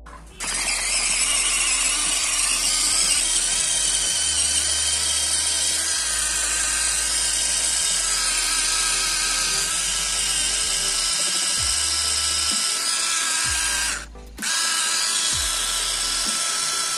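Rechargeable mini electric food chopper running steadily with a drill-like whir as its blades chop onion pieces in the plastic bowl. It stops for about half a second near the end, then runs again.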